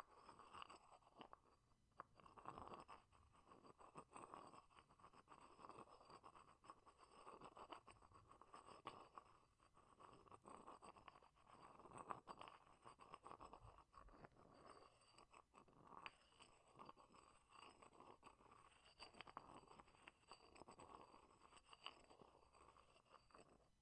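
Pestle grinding and scraping around the inside of a white mortar, a faint rasping that swells and fades about every second or two, with occasional light taps.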